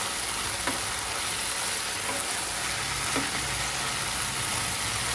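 Marinated chicken pieces sizzling steadily in oil in a non-stick frying pan on high flame while being stirred with a silicone spatula. The chicken's water has cooked off and the oil is beginning to separate. A low steady hum runs beneath the sizzle.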